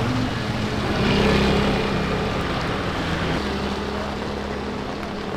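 An engine running steadily with its low hum over a steady hiss, swelling about a second in and then slowly fading.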